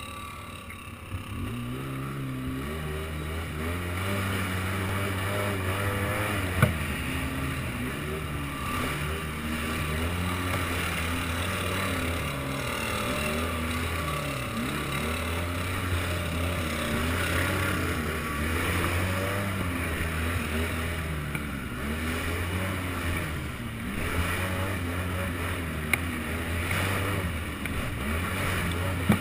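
Polaris Sportsman ATV engine running under a riding load, its pitch rising and falling over and over with the throttle, under a steady rush of noise. A couple of sharp knocks stand out, about six and a half seconds in and near the end.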